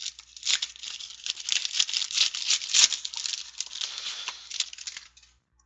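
A trading-card pack wrapper being torn open and crinkled by hand, a dense irregular crackle that stops about five seconds in.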